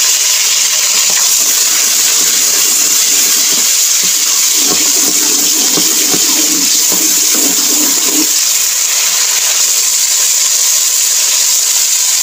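Sliced onions sizzling steadily in hot oil in an aluminium pot as they fry to a light golden colour, stirred with a spoon.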